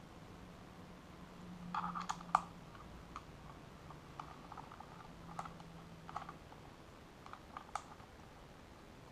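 Small metallic clicks and light scrapes of a rebuildable dripping atomizer being handled and threaded onto an ohm reader to measure its coil resistance, with a quick run of clicks about two seconds in and scattered single clicks after.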